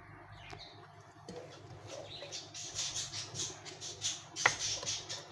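Sliced onions frying in oil in a non-stick wok, stirred with a wooden spatula: repeated scraping strokes with sizzle, quieter for about the first second. A sharp knock near the end, likely the spatula striking the pan.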